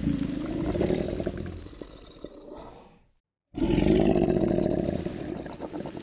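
A large animal roaring in two long, deep, rough calls, each fading away. A brief dead silence separates them about three seconds in.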